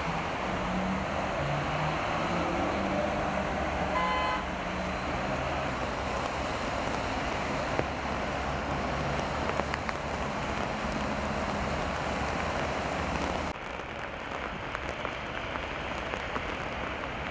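Heavy rain falling, with traffic driving on wet roads, and a short horn toot about four seconds in. Near the end the sound drops to a quieter patter of rain on wet ground.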